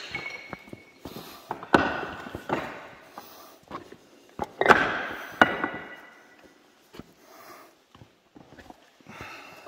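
Footsteps on loose slate rubble: scattered clicks and two loud crunching clinks, about two and four and a half seconds in, each trailing off with a brief ringing.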